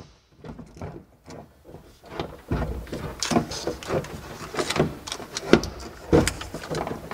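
Old tractor-cab stereo head unit being slid out of its mounting slot in the overhead console: its metal case scraping and knocking against the plastic trim, with irregular clicks and bumps starting about two and a half seconds in.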